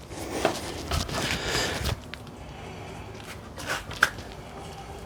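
Handling noises from fitting a motor to a transmission: about a second and a half of rubbing and shuffling with small knocks, then a couple of sharp clicks later on.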